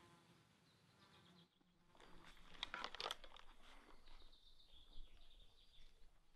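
Near silence. A faint fly buzzes and fades out within the first second or two. About two to three seconds in comes a short run of soft rustling and clicking from clothing and rifle gear as the rifle is raised to aim.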